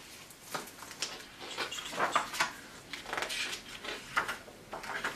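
A hardcover picture book being opened and its pages turned and handled: a string of short, irregular paper rustles and soft knocks.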